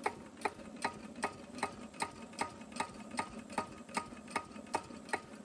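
Cunewalder single-cylinder evaporative-cooled (hopper-cooled) diesel engine idling very slowly. It gives an even knock about two and a half times a second while its idle speed is being brought down.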